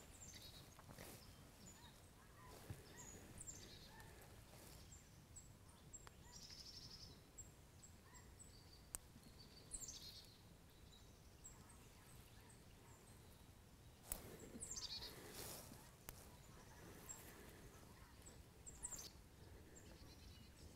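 Quiet woodland ambience: faint, short, high-pitched small-bird chirps with occasional rustles in dry leaves and a couple of sharp snaps.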